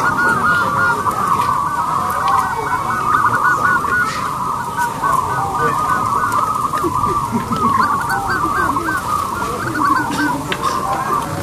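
Zebra dove (perkutut) cooing: a steady stream of short, rapid coo notes that overlap one another.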